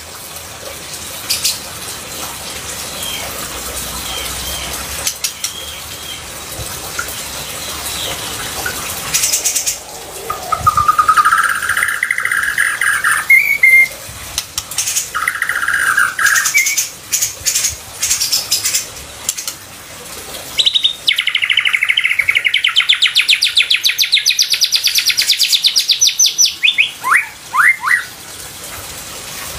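Songbird singing: sharp chips and short trills, then a long, fast trill about two-thirds of the way through, over a steady background hiss.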